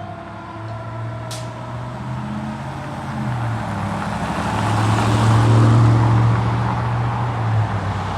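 Fire apparatus going by: its siren winds down and fades in the first second or so, with a brief hiss just after. Then the heavy engine runs steadily, swelling to its loudest about five to six seconds in.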